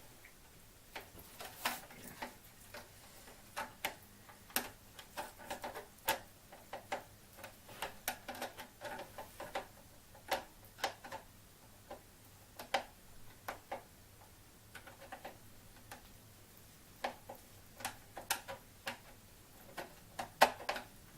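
Irregular small clicks and scrapes of a flathead screwdriver working at a screw in the plastic handle of a stick vacuum, with a few pauses and a sharper click near the end. The screwdriver is too big for the screw.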